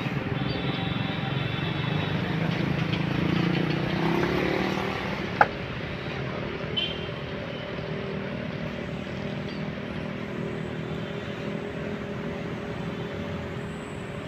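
Road traffic running by, with a motor vehicle passing that swells to a peak about three to four seconds in and then fades. A single sharp click sounds about five seconds in.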